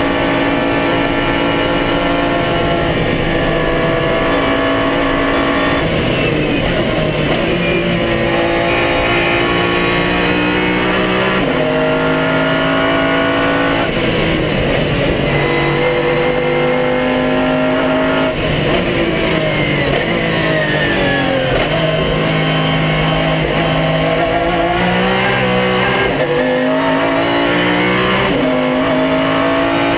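Pagani Zonda R's naturally aspirated 6.0-litre AMG V12 at full racing speed, heard inside the cockpit: the revs climb again and again and step down at each quick upshift. Around the middle the pitch falls away through several downshifts under braking, then climbs hard again, with tyre and wind noise underneath.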